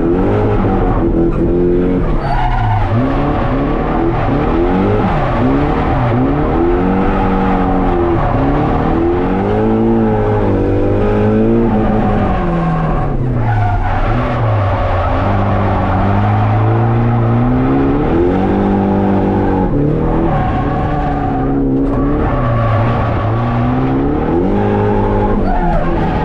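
A drift car's engine revving hard, its pitch climbing and dropping every few seconds, over continuous tyre squeal from sliding.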